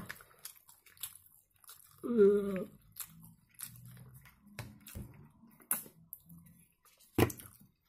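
Close mouth sounds of eating: lip smacks and small wet clicks as sauce is tasted off the lips. About two seconds in there is a short, louder pitched sound that wavers, and there is a sharp click near the end.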